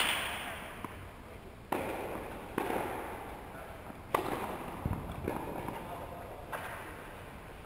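Tennis balls being struck by rackets and bouncing during a doubles rally: about half a dozen sharp pops, roughly one to one and a half seconds apart, each trailing off in a short echo.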